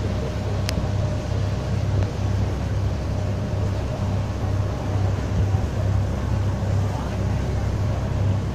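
A passenger boat's engine running steadily with a low, pulsing drone, under the rush of water churned up in its wake.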